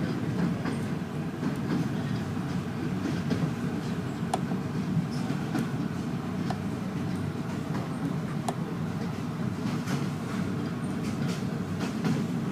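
Passenger train running, heard from inside the carriage: a steady low rumble with scattered light clicks and rattles.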